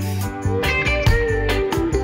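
Background music with a steady beat, a bass line and guitar.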